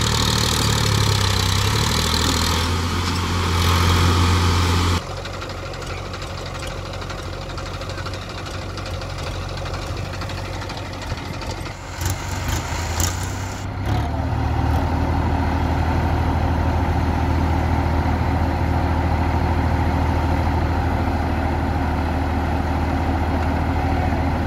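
Diesel engines of a Massey Ferguson 7250 tractor hauling a loaded soil trolley and a JCB 3DX backhoe loader, running steadily under load. The sound changes abruptly about five seconds in and again near fourteen seconds, with a few sharp knocks just before the second change.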